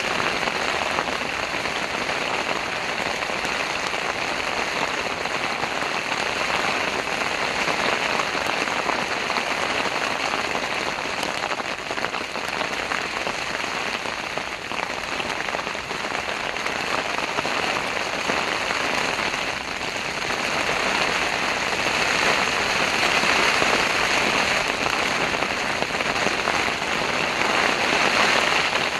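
Heavy rain drumming steadily on a tent, a dense patter of drops that swells a little in the last third.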